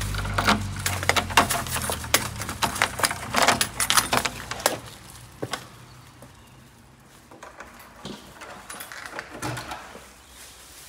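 Keys jangling and a key working in a door lock: a quick run of metallic clicks and rattles for the first four to five seconds, then a few quieter clicks as the door is opened.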